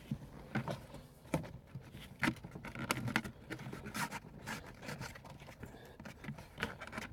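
Hands working plastic car interior trim: irregular light clicks, taps and scrapes as the dashboard panels are handled and pushed into place.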